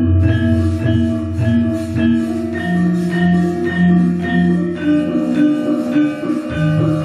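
Javanese gamelan playing: bronze metallophones strike a run of ringing, sustained notes over deep low tones, with a new deep note entering near the end.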